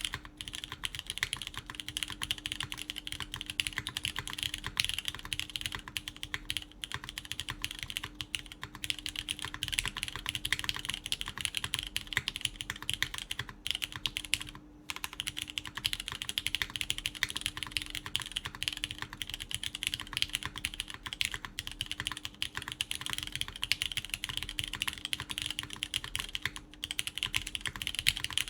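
Continuous fast typing on a QK Neo80 Cu mechanical keyboard: lubed Cherry MX Orange switches, GMK Carbon keycaps, PEI plate, silicone gasket mount. A dense stream of key clacks with a brief pause about fifteen seconds in.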